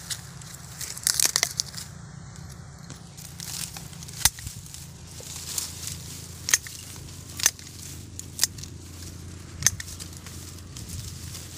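Pruning shears snipping through dry twigs and grass stems. There are several sharp snaps at uneven intervals, a quick cluster about a second in and then one every second or two, over the crackling rustle of dry stems being pushed aside.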